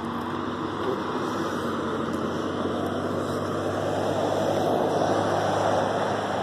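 Road traffic: a passing vehicle's engine and tyre noise with a low steady hum, slowly swelling to a peak about five seconds in and then easing off.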